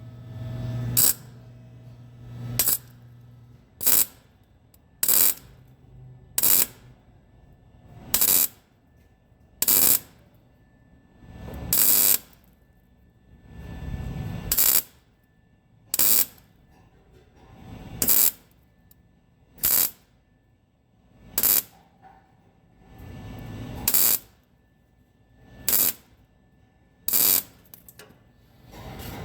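Repeated short, sharp metallic bursts from a tool working on a broken exhaust stud in a cylinder head, about twenty of them, one every second and a half or so, with a low hum under the first few.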